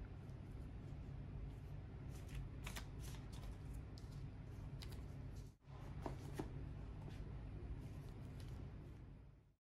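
Rustling and light clicks from gloved hands handling a small action camera and accessories in plastic bags, over a steady low background hum. The sound fades out near the end.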